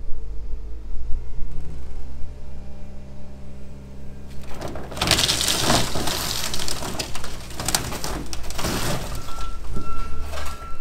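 Case wheel loader's diesel engine running while its forks push down on an old sedan's roof: sheet metal crunching and glass breaking about four to five seconds in, more crunching near nine seconds, and a brief high squeal near the end.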